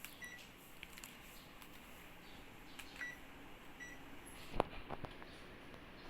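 Panasonic mini split air conditioner indoor unit giving short high beeps, three in all: one near the start and two about three and four seconds in, the unit's acknowledgement of remote-control commands. A few sharp clicks or knocks follow about four and a half seconds in, the first the loudest sound.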